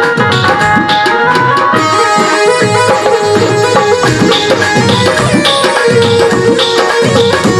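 Instrumental interlude of a Hindu devotional bhajan: tabla playing a brisk rhythm under a melody instrument holding and stepping between sustained notes.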